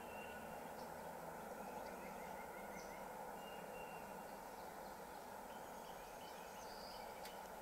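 Faint steady outdoor background noise with a few scattered high chirps of small wild birds, including a short rapid trill about two seconds in.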